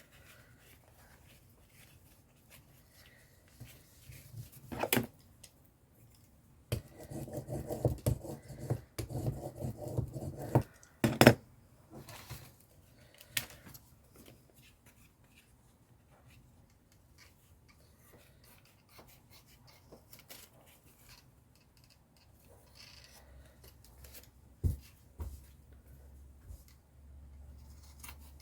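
Scissors cutting paper and card while craft materials are handled. The cutting and rustling is densest from about 7 to 11 seconds in, with sharp knocks about 5 and 11 seconds in.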